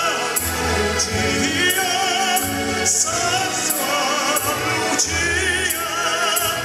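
A man singing in a full, operatic style with wide vibrato, accompanied by an orchestra with strings and a steady beat.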